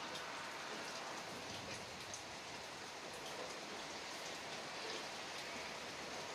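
Steady rain falling: an even hiss with scattered individual drops ticking through it.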